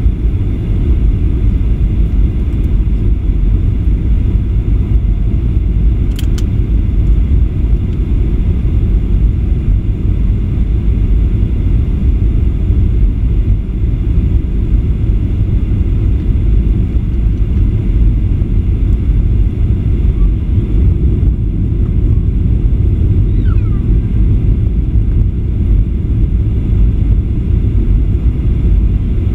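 Steady cabin noise inside a Boeing 737-800 in flight: a loud, even rumble of its CFM56 jet engines and the airflow past the fuselage, heard from a window seat over the wing.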